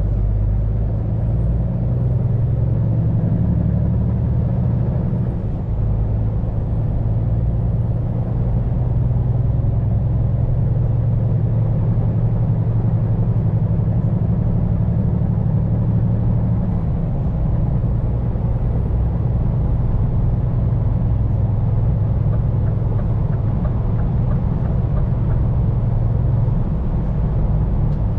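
Diesel engine of a Scania P410 truck running steadily under way, heard with road noise. The engine note shifts a few times, around five, fourteen and seventeen seconds in.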